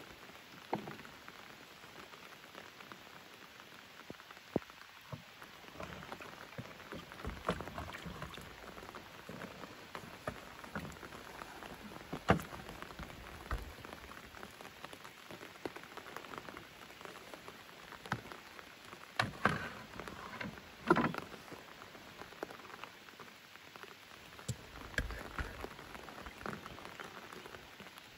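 Steady rain falling on a lake's surface, an even hiss of countless drops. A few sharper close knocks stand out, the loudest about halfway through and a cluster around twenty seconds in.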